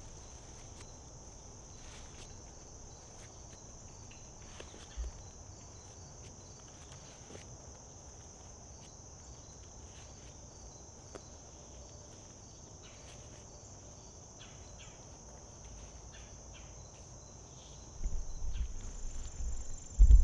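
Steady high-pitched insect chorus, with a few faint ticks and rustles. Near the end, low thumps and rumbling come in and are the loudest sound.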